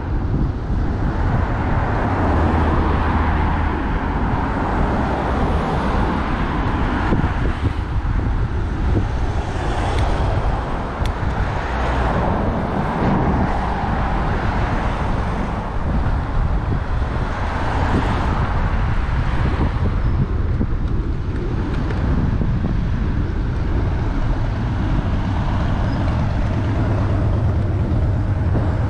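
Road traffic noise heard while riding along a road, with wind rumbling on the microphone; the hiss swells and fades several times as vehicles pass.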